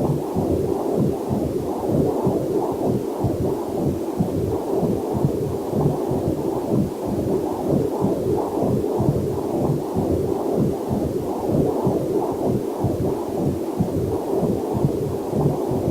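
Heartbeat picked up by a fetal Doppler heart monitor: a fast, even whooshing pulse, about two to three beats a second, with a faint waterfall mixed in underneath.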